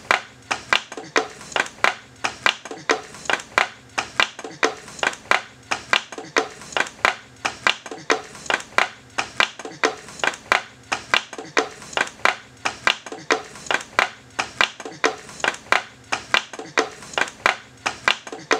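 A steady series of sharp clicking taps, about three a second, each with a short ring, keeping an even rhythm throughout.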